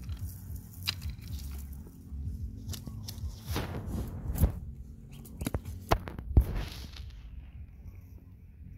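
A wet nylon cast net being handled as fish are picked out of it: the mesh rustles, and its chain weights clink and knock against wooden boards, with a few sharper knocks in the second half, over a low steady rumble.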